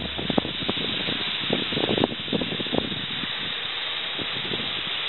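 Wind noise on the camera microphone: a steady hiss with many scattered crackles and rustles.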